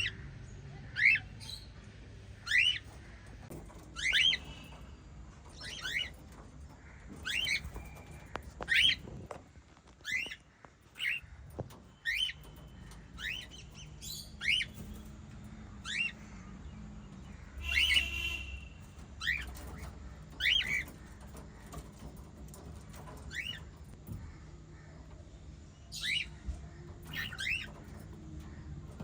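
Small pet parrots giving short, sharp chirping calls about once every second or so, with brief gaps between them and one harsher squawk about two thirds of the way through.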